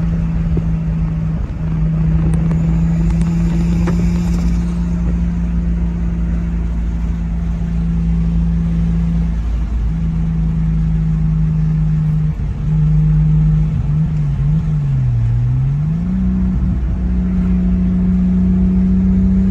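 Turbocharged Toyota 2JZ inline-six engine in a Supra running under way, holding steady revs for a long stretch over a low rumble. About two-thirds through, the revs drop away and come back up, then climb steadily near the end.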